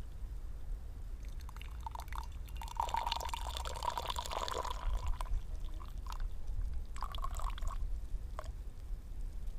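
Tea being poured out of a small teapot: a few short trickles, one longer pour, then short pours and drips near the end.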